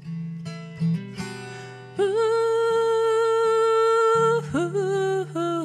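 Acoustic guitar accompanying a woman singing a long, steady held 'ooh' that starts about two seconds in, followed by a few shorter sung notes.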